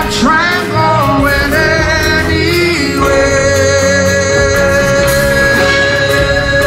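Live rock band playing: singing over guitars, bass guitar and drums, with a long held note from about three seconds in.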